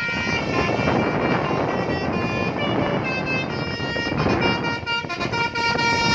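Indonesian bus 'telolet' horn, a multi-tone musical horn, sounding a string of held notes that change pitch in steps. It plays over a steady rushing noise that thins about five seconds in, leaving the horn notes clearer.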